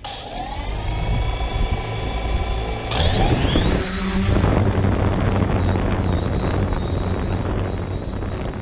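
3DR Solo quadcopter's electric motors and Master Airscrew propellers spinning up from rest with a rising whine that settles to a steady idle, then throttling up about three seconds in for take-off. After that a steady high propeller whine runs over a low hum.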